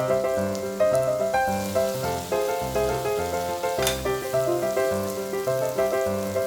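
Background music: sustained melody notes over a regular bass pulse. Pork sizzles on a samgyupsal grill underneath.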